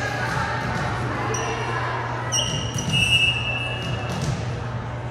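Gymnasium crowd chatter with a ball thudding on the hardwood floor a few times. Sharp sneaker squeaks on the court come around the middle, over a steady low hum.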